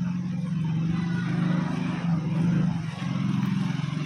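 Small motorcycle engine running at low speed close behind, a steady low hum.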